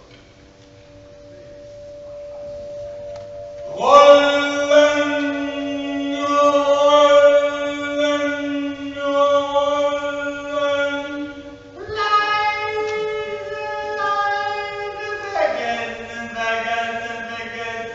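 A man's voice intoning long, sustained vocal tones. A held note swells at first, breaks loudly about four seconds in, and then steps to a new pitch twice, about twelve and fifteen seconds in.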